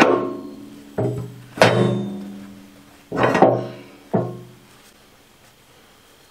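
Heavy steel parts of a backhoe thumb kit clanking against the dipper-stick bracket as the linkage bar is handled: about six sharp metal knocks in the first four seconds, each ringing briefly, then quiet.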